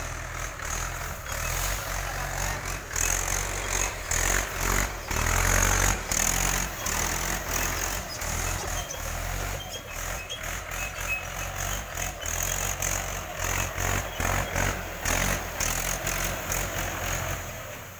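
Mahindra 415 DI tractor's diesel engine running as the tractor drives over spread paddy straw, threshing the rice by treading it under the wheels. The engine sound rises and falls, loudest a few seconds in and fading near the end.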